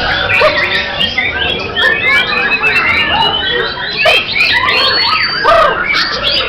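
Several white-rumped shamas (murai batu) singing at once: loud, overlapping whistles, trills and chirps, with one long rising whistle about two seconds in.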